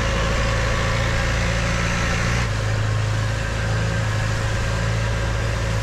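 A boat's engine running steadily under way, with rushing wind and water noise. Its note shifts slightly about halfway through.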